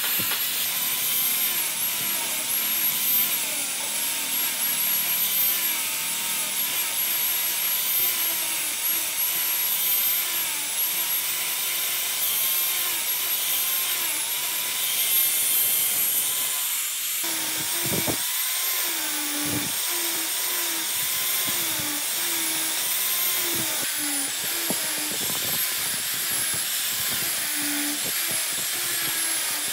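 Handheld electric angle grinder running with an abrasive sanding disc, grinding and sanding the edges of a pine wooden gear. The motor's whine wavers in pitch as the disc is pressed into the wood and eased off.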